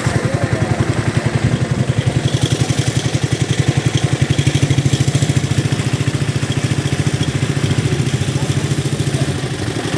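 A small engine running steadily with a fast, even chug of about ten beats a second.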